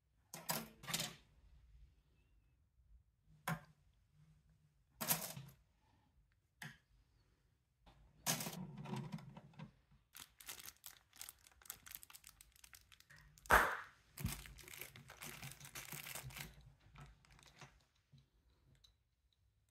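Plastic toy parts being handled and set down, with scattered clicks and knocks and the crinkle of a small plastic parts bag; one sharp click about two-thirds of the way through is the loudest.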